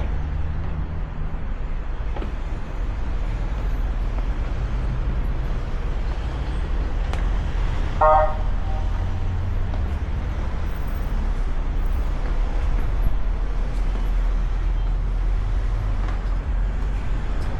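Street traffic: a motor vehicle's engine runs as a steady low rumble. A single short horn toot sounds about eight seconds in.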